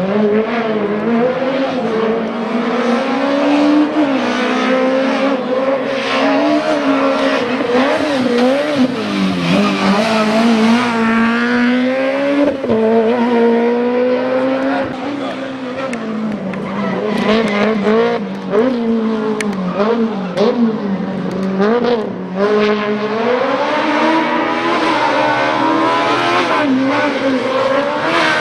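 Race car engine at high revs, its pitch rising and falling again and again as it accelerates, shifts gear and backs off for corners.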